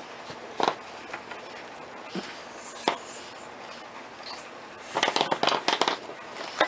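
Rubber bands being stretched and hooked over the pegs of a plastic geoboard: a few separate clicks, then a quick flurry of clicks about five seconds in.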